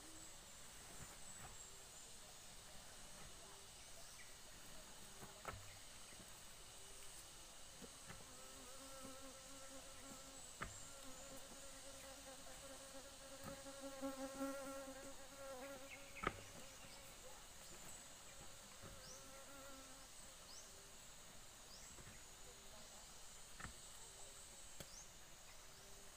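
A flying insect buzzing at a steady pitch, growing louder to a peak about fourteen seconds in and fading away by about twenty seconds. A few sharp clicks fall among it, the loudest about sixteen seconds in.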